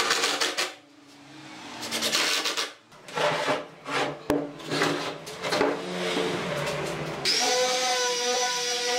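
Cordless drill driving a screw into a wooden table frame, then a run of short wooden scraping and rubbing sounds with one sharp click in the middle. About seven seconds in, an electric palm sander switches on and runs steadily.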